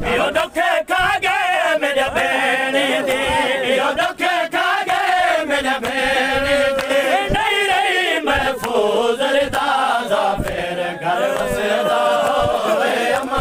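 A crowd of male mourners chanting a noha lament together, with repeated sharp chest-beating slaps (matam) striking through the chant.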